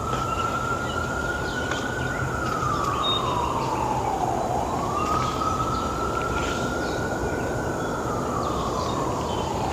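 A siren wailing in a slow rise-and-fall, sweeping up, holding high, then sliding down, twice over, over a steady background hiss.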